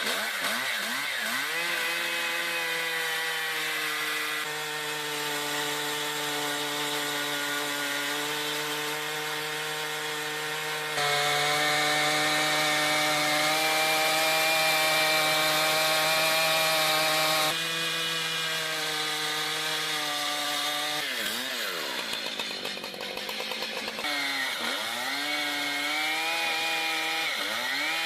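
Chainsaws running at high speed while cutting wood, the sound changing abruptly several times from one saw to another. Near the end the engine pitch repeatedly dips and recovers as the saw is revved or loaded in the cut.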